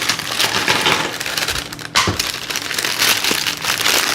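Plastic packaging crinkling and rustling as toy parts are handled and pulled out, with a brief pause about two seconds in.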